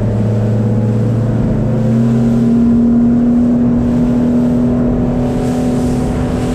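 200 HP Mercury outboard at full throttle bringing the boat up on plane. Its note climbs about two seconds in, then holds steady at the higher pitch, over the rush of water along the hull.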